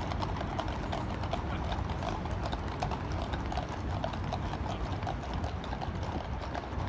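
Many shod horses' hooves clip-clopping on a paved road, from a horse-drawn carriage and its mounted escort; the hoofbeats overlap in an uneven patter over a steady low rumble.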